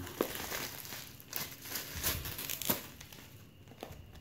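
Thick bubble wrap and plastic packing being pulled off a box and crumpled by hand: crinkling with several sharp crackles, busier in the first three seconds and dying down near the end.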